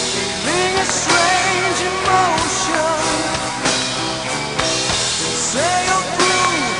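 Rock song with band backing and a sung vocal line that slides up into held notes.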